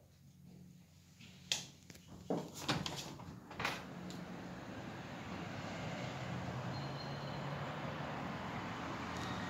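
A glazed terrace window being unlatched and opened: a handful of sharp clicks and knocks from the handle and frame in the first few seconds, then a steady hum of city noise coming in through the opening.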